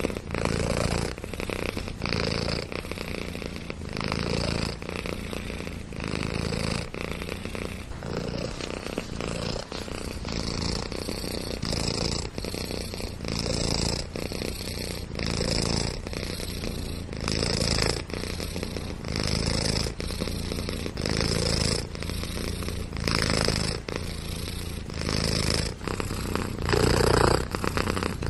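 A cat purring steadily and close up, the purr swelling and easing in an even rhythm about once a second as it breathes in and out.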